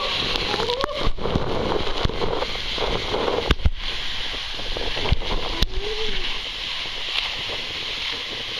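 Water rushing and a rider sliding through an enclosed water slide tube, with several sharp knocks as the body bumps against the tube walls. A short vocal sound comes about six seconds in.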